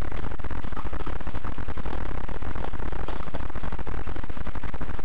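Loud, steady electrical buzz from a faulty helmet-camera microphone: a low hum with rapid crackle all through it, covering the other sounds.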